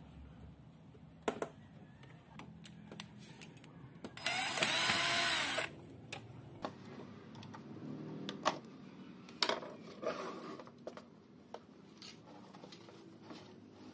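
Small plastic and metal parts of an angle grinder's toggle switch clicking and knocking as they are handled. About four seconds in there is a brief whir, about a second and a half long, rising in pitch at the start and falling at the end.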